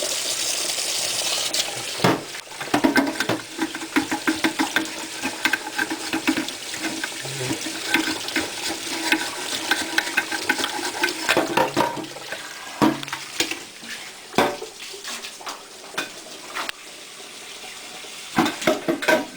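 Tap water running for about the first two seconds, then a dense run of clicks, knocks and scraping as a dirty boilie bait gun is scrubbed and rinsed out in a sink.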